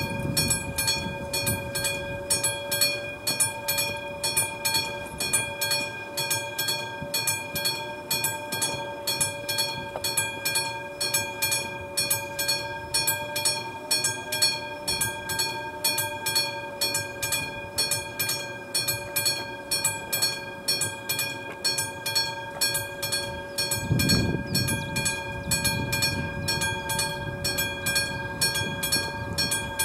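Electromechanical bell of an AŽD 71 level-crossing warning signal ringing continuously with rapid, even strikes, a few a second, warning that a train is approaching. A low rumble swells briefly about three quarters of the way through.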